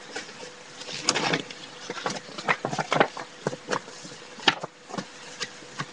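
Paper cards and sheets rustling and crackling as they are handled and shuffled, in irregular short crackles and taps.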